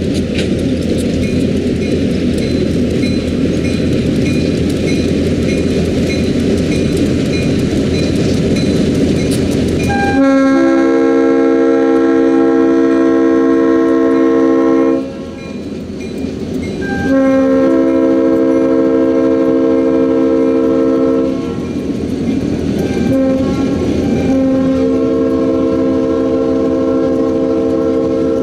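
Diesel locomotives of a freight train rumble past, then about ten seconds in a train's air horn sounds a chord of several notes in four blasts, long, long, short, long: the grade-crossing signal. Freight cars rattle on the rails under the horn.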